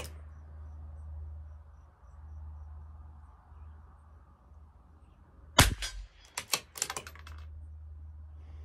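A .22 LR bolt-action rifle, a CZ 457 LRP, fires a single shot about five and a half seconds in. A quick run of sharp metallic clicks follows as the bolt is worked to eject the case and chamber the next round.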